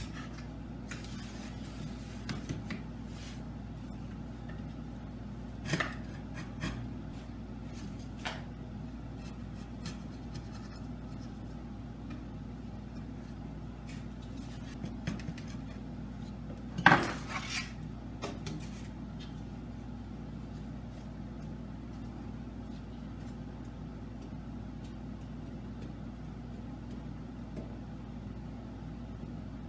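Scattered clinks and knocks of a chisel and other hand tools being handled and set down on a workbench and a braced guitar top, the loudest a sharp knock about 17 seconds in, over a steady low hum.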